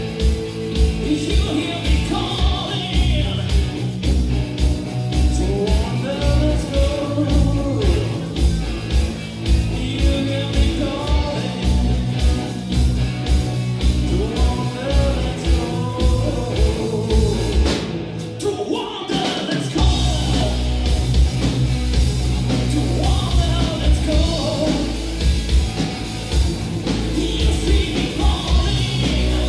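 Live rock band playing: electric guitars, bass and drum kit, with a man singing over them. About eighteen seconds in the band breaks off briefly, then comes back in at full strength.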